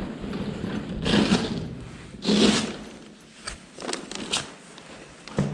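Two louder thuds about a second apart, then a few lighter knocks and clicks.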